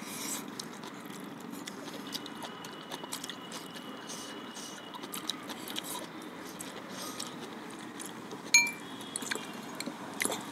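Slurping and chewing of spicy noodles with rice cake, with many small wet mouth clicks. One sharp clink of a fork against a bowl about eight and a half seconds in.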